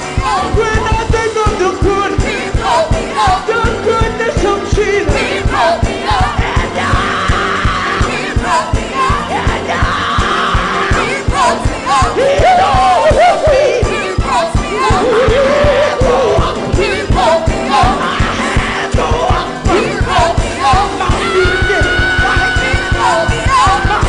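Live gospel music: a singer's sliding, wordless vocal runs over a band with a steady drum beat and bass.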